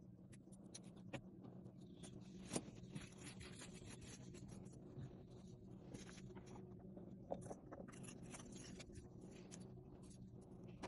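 Faint, scattered clicks and scratches of jewelry pliers and small metal findings being handled on a work mat while wire-wrapping stones, over a low steady hum.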